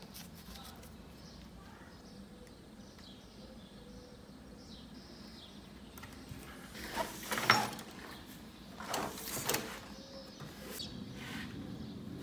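Two short scraping bursts about a second and a half apart, from a hobby knife cutting on a tabletop, with faint bird chirps in the background.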